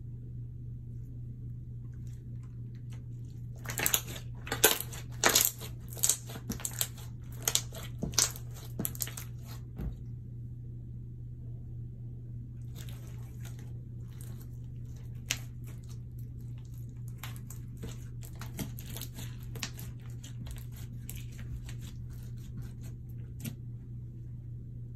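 Slime being mixed and squished by hand, giving a run of sharp wet clicks and pops for several seconds, then after a short pause a longer stretch of fainter, quicker crackling. A steady low hum lies under it all.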